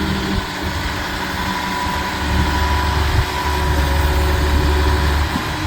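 John Deere 350G excavator's diesel engine running while it digs. The low drone grows louder about two seconds in, dips briefly, and holds until near the end.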